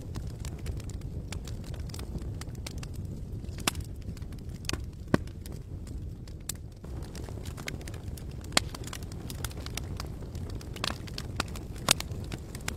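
Campfire burning: a steady low rush under sharp, irregular crackles and pops, the loudest pops about five seconds in and near the end.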